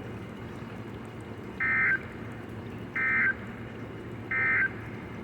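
EAS end-of-message code (NNNN) sent by NOAA Weather Radio: three short, identical data bursts with a warbling two-tone sound, each about a third of a second long and a little over a second apart, over steady radio hiss. The bursts mark the end of the alert message.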